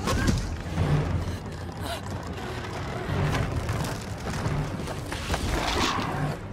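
Action-film soundtrack of a giant gorilla fighting a tyrannosaur: a dramatic score with a repeating low pulse, mixed with heavy hits and creature-fight effects. A sharp impact comes right at the start.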